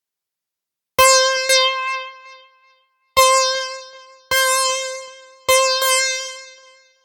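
Software synthesizer patch in Arturia Analog Lab V playing the same single note over and over, about eight strikes mostly in quick pairs, each bright at the attack and fading over a second or two, as a sound is auditioned for an MPC keygroup.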